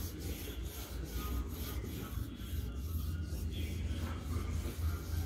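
Half a lemon rubbed back and forth along a sword blade to scrub off black tarnish with its juice: a soft, even rubbing in quick strokes, about three a second.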